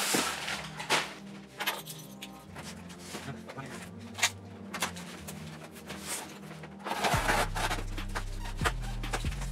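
Background music with a steady beat, over irregular knocks and scrapes of a large cardboard box being shifted and turned on a wooden table. A heavy bass line comes in about seven seconds in.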